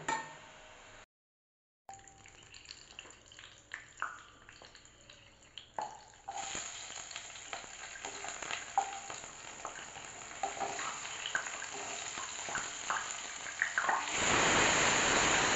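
Hot oil in an iron kadai with scattered light clinks of a utensil, then steady sizzling from about six seconds in as garlic and ginger pieces fry. Near the end a much louder sizzle starts as chopped tomatoes and onions go into the hot oil.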